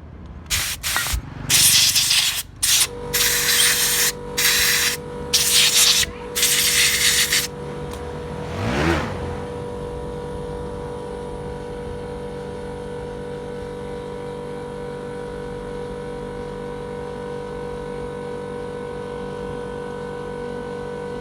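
A series of short, loud hissing bursts of spray blown through the generator's carburettor parts as they are cleaned, ending about seven seconds in. About three seconds in, a steady machine hum starts and runs on.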